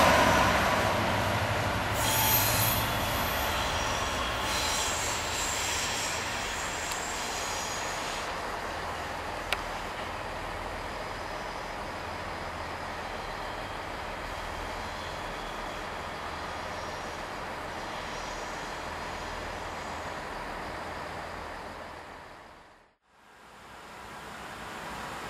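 Class 67 diesel locomotive, a two-stroke V12, hauling Mk3 coaches past and drawing away, its running sound fading. From about two seconds in, for several seconds, high wheel squeal as the train takes the curves. The sound drops out briefly near the end.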